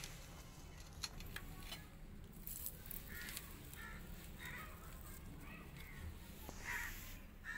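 Several short, high animal calls, repeated about every half second to a second from about three seconds in, over faint clicks and rustling.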